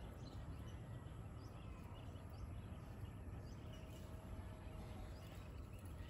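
Faint outdoor ambience: scattered short, high bird chirps, one every second or so, over a steady low rumble of background noise.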